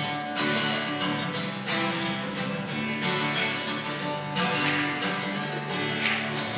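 Acoustic guitar strumming a steady country chord accompaniment, with no voice over it.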